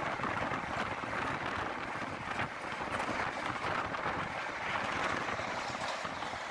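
Steady rush of wind past the microphone at the open window of a moving Indian Railways sleeper coach, mixed with the coach's running noise on the rails.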